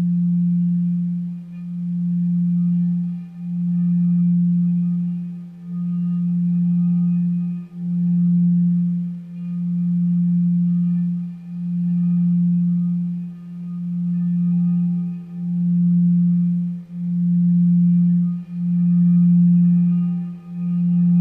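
A singing bowl held in a long, steady low hum, kept sounding without being struck, so it is being played around its rim. Its tone swells and dips regularly, about once every two seconds.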